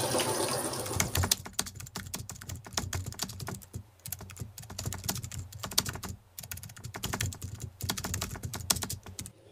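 Computer keyboard typing sound effect: a long run of quick, uneven clicks that starts about a second in and stops just before the end. It follows a second of fading hiss.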